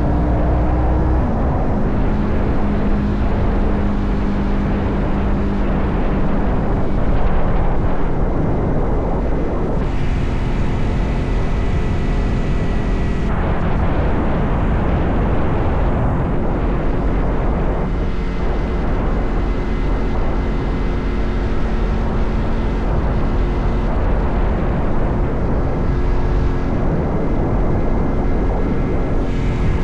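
Motorcycle engine running at speed under heavy wind rush, its note shifting in pitch several times through the ride.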